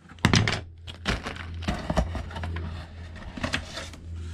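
Parts being handled on a plywood workbench: a paper manual and plastic-bagged tool parts are picked up, shuffled and set down, with several light knocks and clatters.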